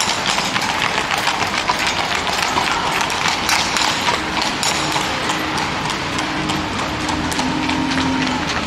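Horses' hooves clip-clopping on the tarmac as horses pulling two-wheeled sulky carts trot along the road, many hoof strikes overlapping. A low steady hum joins in during the second half, as a bus comes along.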